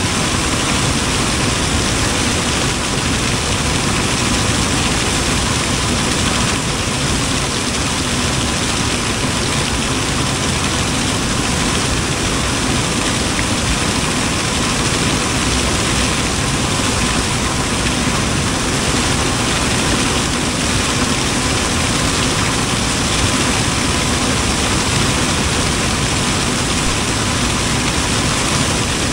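Combine harvester running under harvesting load as its corn head takes in rows of dry corn stalks: a continuous, even machine noise.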